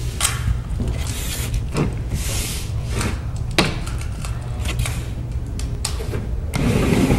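Handling noise at a panel table with a microphone: scattered knocks, taps and rustles over a steady low electrical hum, with a sharp knock about three and a half seconds in and a louder rustle near the end.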